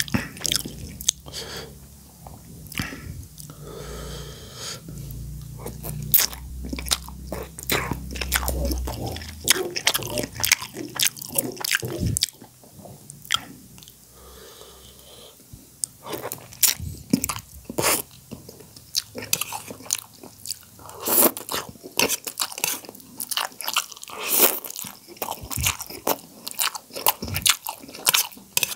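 Close-miked eating sounds of soupy instant noodles: chewing and slurping, with many sharp wet mouth clicks and smacks in quick, irregular succession.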